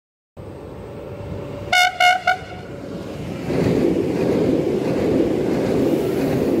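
Newag Impuls electric multiple unit sounds three short horn blasts, the last one shortest, as it approaches. Its wheels and running gear then rumble past, growing louder from about three and a half seconds in.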